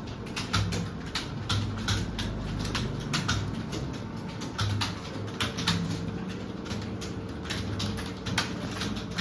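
Computer keyboard being typed on: sharp key clicks at an uneven rate of about three to four a second, as in a timed typing test.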